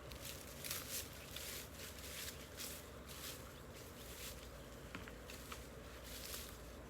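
Faint footsteps, a soft swish roughly every two-thirds of a second.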